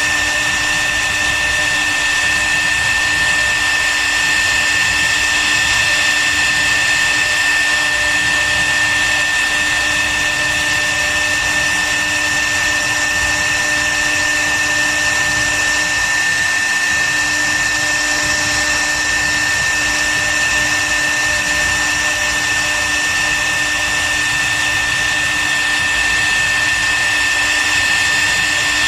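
CNC wood router's spindle running at a constant speed: a steady high whine over an even hiss.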